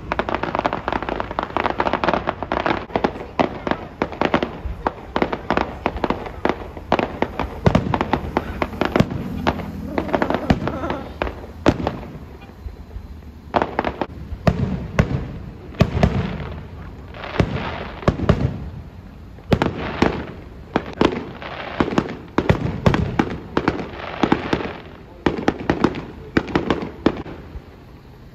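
Fireworks display: aerial shells bursting in a dense barrage of bangs and crackles, thinning after about twelve seconds to clusters of separate bangs roughly a second apart.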